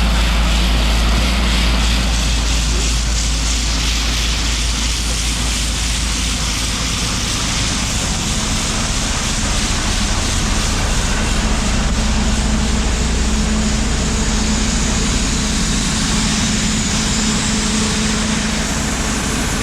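Combine harvester running steadily while shelling corn: a constant, loud machine noise.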